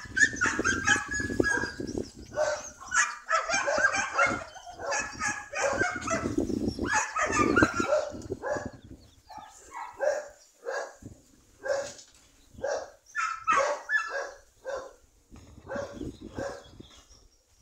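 Dog barking and yipping: a dense run of short barks for the first half, then thinning out to separate barks about one or two a second.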